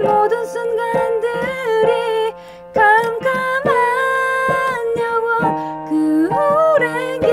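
A woman singing a slow Korean pop ballad over a backing track, holding long notes. She pauses briefly about two and a half seconds in.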